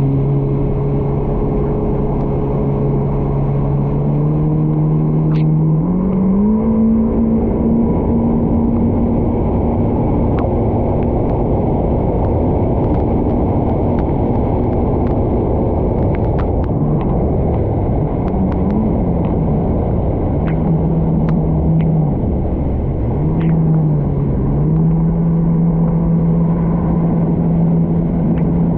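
Yamaha VXR 1.8 WaveRunner's four-stroke engine running under throttle, with water rushing and wind. The engine note climbs to a higher steady pitch about six seconds in, dips twice as the throttle is eased off and reopened a little past the middle, then settles to a steady note again.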